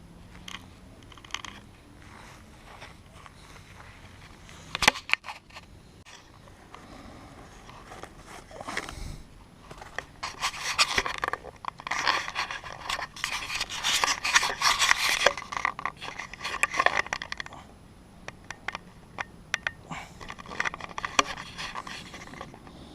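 Irregular scraping and rubbing of things being handled, with scattered sharp clicks. The sound is densest and loudest in bursts through the middle.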